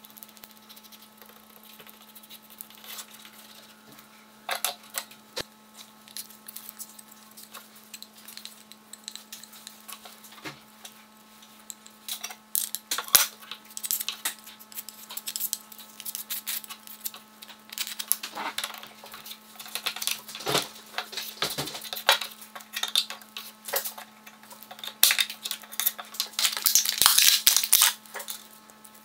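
Close handling noises at a workbench: light clicks, taps and scraping as a thick black paste is spread and a tool is handled, then a thin sheet crinkling and rustling near the end. A steady low hum runs underneath.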